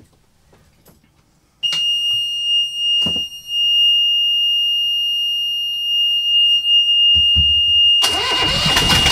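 Yanmar 2GM20 two-cylinder marine diesel being started. A high, steady warning buzzer from the engine panel comes on about one and a half seconds in. The starter cranks briefly about seven seconds in, and the engine catches at about eight seconds and runs with an even, rhythmic diesel clatter while the buzzer keeps sounding.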